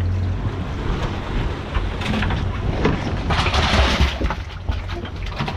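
Water being poured into a fish box packed with ice and fish, with rattling and knocking and a rushing splash about three and a half seconds in.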